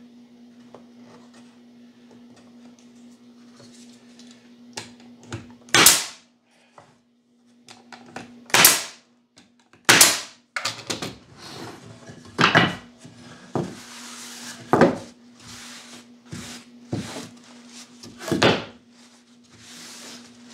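Pneumatic nail gun firing into wooden jig pieces: about six sharp shots a couple of seconds apart, with lighter knocks of wood being handled between them. A steady low hum underlies the first few seconds.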